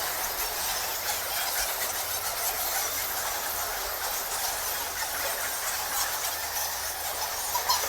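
A colony of bats squeaking and chittering, a steady dense chatter of many high squeaks.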